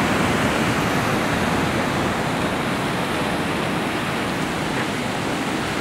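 Ocean surf washing against and around a concrete sea wall: a steady, even rush of moving water.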